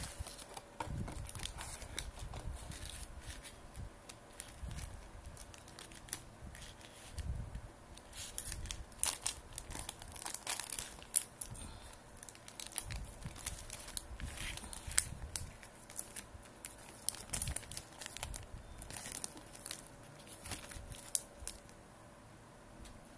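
Clear plastic wrapping crinkling and crackling as it is pulled and torn off a plastic tray of mochi, in irregular sharp crackles that thin out near the end.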